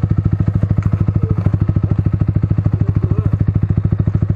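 Yamaha R15's single-cylinder four-stroke engine idling steadily, an even beat of about a dozen pulses a second.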